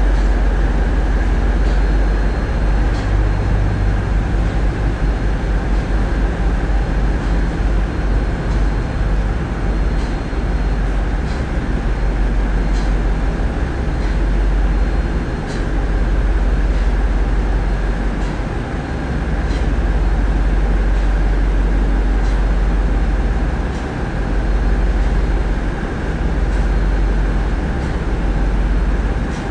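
A tugboat's diesel engines and Voith Schneider propulsion run in a steady, loud low drone, heard from the wheelhouse while the tug works under load on a towline. Faint ticks come through now and then.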